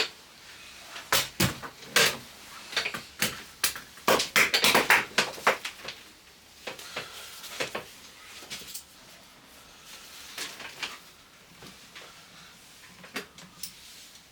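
A run of sharp knocks and clatters from hard objects being handled, coming thick and fast for the first six seconds, then sparser.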